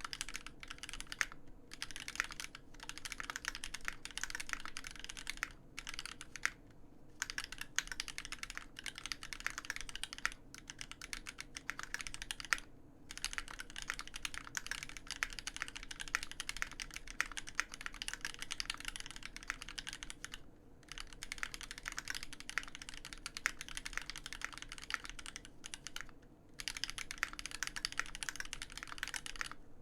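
Steady fast typing on a custom Alpine65 mechanical keyboard with a brass plate, lubed Marshmallow linear switches and GMK keycaps: a dense run of keystroke clacks broken by short pauses, the longest about a third and two-thirds of the way in.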